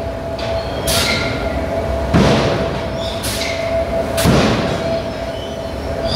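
A 3.5-ton belt (friction) drop forging hammer working hot stock: four heavy blows and metallic clanks about a second apart, over a steady hum.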